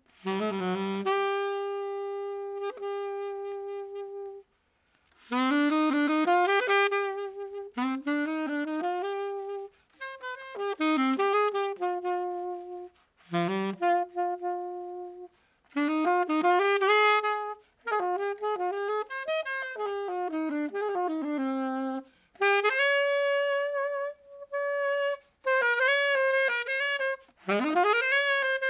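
Unaccompanied alto saxophone playing a slow tango melody in phrases of a few seconds with short breaks between them, the notes sliding and held.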